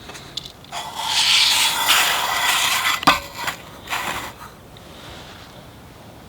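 A rasping rub that lasts about two seconds, then a sharp click and a few shorter scrapes.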